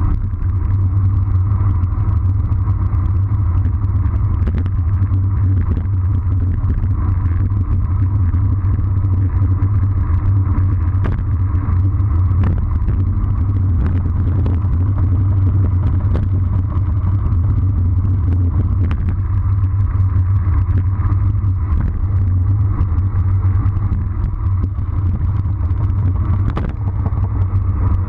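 Wind rushing over the microphone of a bike-mounted camera on a road bike descending at about 40 km/h: a loud, steady low rumble, with tyre noise on the asphalt and scattered small clicks from bumps in the road.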